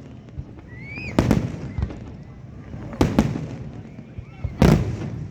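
Aerial fireworks bursting overhead: three loud booms about every one and a half to two seconds, each trailing off in a rumbling echo.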